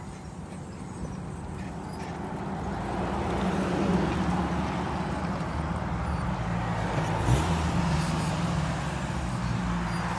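Steady rumble of riding along a street beside traffic: wind on the microphone and passing cars, growing louder over the first four seconds and then holding.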